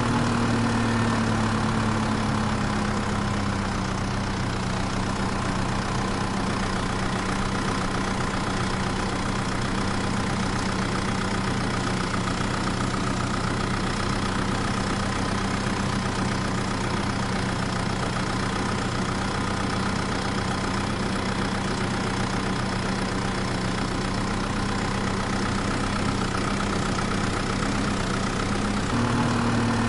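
Vehicle engine idling steadily, its pitch easing slightly lower in the first few seconds and stepping back up near the end.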